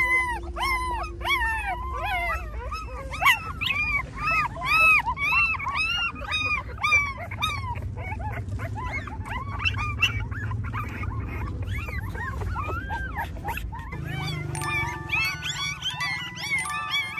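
A litter of young puppies crying: short, high whimpering cries that rise and fall, several a second and overlapping, from puppies hungry and calling for food. The cries thin out about two-thirds of the way through, and soft music with held notes comes in near the end.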